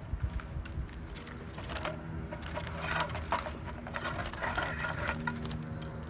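Clicking and clattering of a plastic droppings tray being handled and slid into a wooden birdcage, busiest in the middle seconds.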